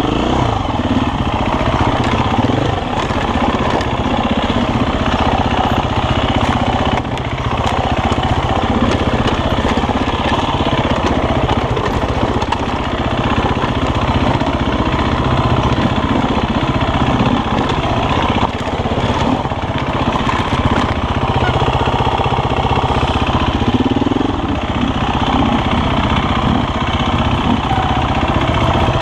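Enduro motorcycle's single-cylinder engine running at low revs, heard close up from the bike. The revs rise and fall under the throttle as it climbs a rocky trail.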